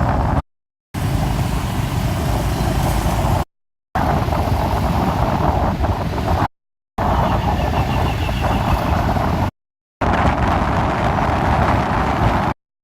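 Loud, steady rush of wind and traffic noise heard from a moving motorbike. It drops to dead silence for half a second about every three seconds, where the recording is cut.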